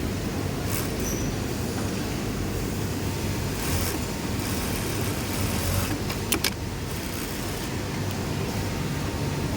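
Industrial sewing machines running in a garment factory: a steady mechanical hum, with a few brief bursts of higher noise and two sharp clicks about six seconds in.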